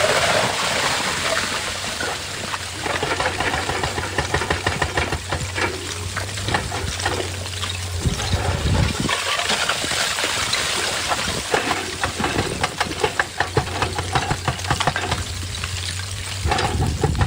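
Excavator engine running with a steady low hum while rock and gravel clatter and crackle densely around the machine, the hum dropping away briefly about halfway through.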